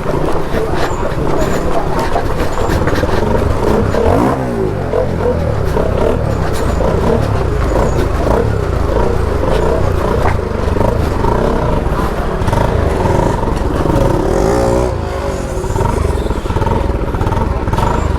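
Motorcycle engine running steadily at low revs while the bike is eased down a steep, stepped slope, with a few short knocks.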